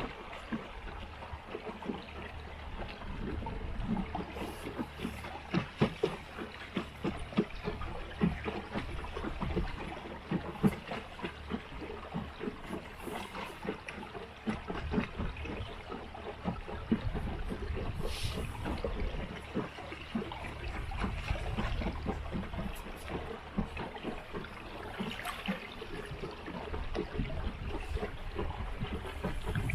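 Water lapping and splashing against the hull of a wooden boat under way, in many small irregular splashes over a steady low rumble.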